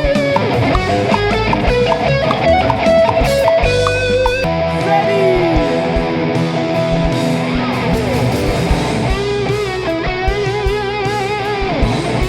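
Music led by electric guitar, with a wavering lead melody over a fuller band sound; the texture changes about four and a half seconds in.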